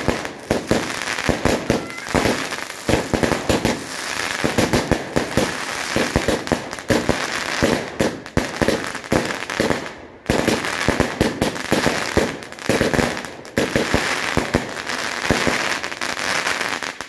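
A barrage of aerial fireworks firing in rapid succession: a dense run of bangs and crackling bursts, with a brief lull about ten seconds in, stopping suddenly at the end.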